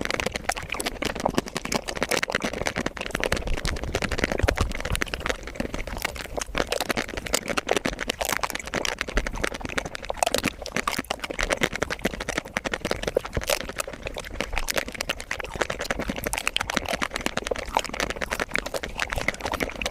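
Mouth sounds of eating chocolate ice cream, sped up five times: a dense, rapid stream of clicks, smacks and crunches with no pauses.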